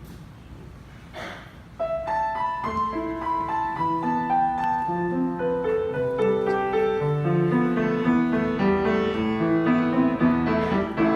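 Piano playing a hymn introduction, starting about two seconds in with single melody notes that fill out into chords.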